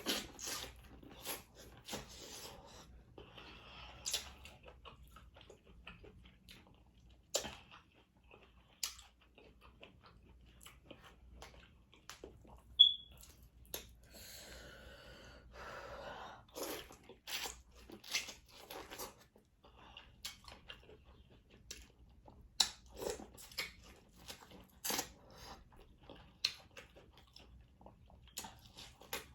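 A person eating seafood close to the microphone: chewing and biting, with many short sharp clicks and smacks throughout. One sharp, louder click comes about 13 seconds in.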